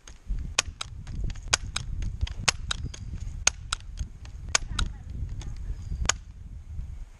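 BB gun fired in a rapid string, about fifteen sharp cracks at roughly two or three a second, stopping about six seconds in, over a low rumble.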